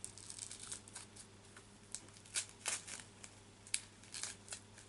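Soft wrapping being pulled and crumpled off a plastic dinosaur figure by hand: faint, irregular crinkles and rustles, with a few sharper crackles in the second half.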